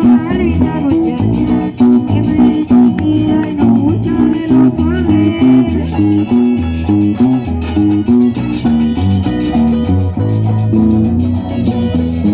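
Carranga music from a string band: plucked guitars over a repeating bass line, in a steady dance rhythm.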